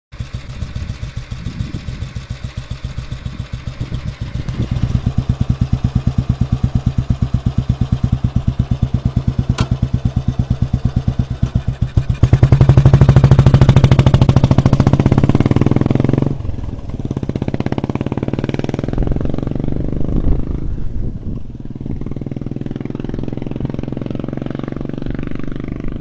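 2008 Royal Enfield Bullet 350's single-cylinder cast-iron engine running with a steady, even thump right beside the microphone, growing louder a few seconds in. It is revved hardest around the middle as the bike pulls away, then drops off suddenly and fades into the distance.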